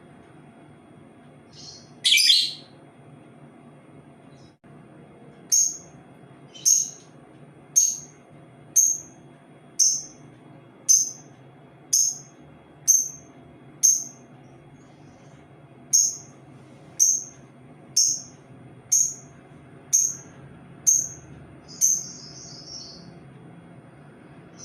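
Labet bird (burung labet) calling: one loud call, then a long run of short, sharp, high chirps about once a second, and a longer buzzy note near the end.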